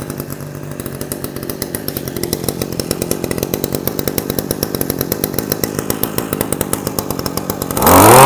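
Small 26cc two-stroke brush cutter engine idling with an even, rapid putter just after being started for a test run. Near the end it is suddenly revved up hard, much louder, with the pitch climbing.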